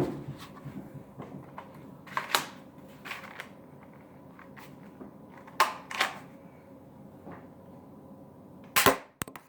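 Toy M1911-style foam-bullet pistol being handled, with scattered light clicks and knocks, then a sharp snap near the end as it fires a foam bullet, followed by a couple of small clicks.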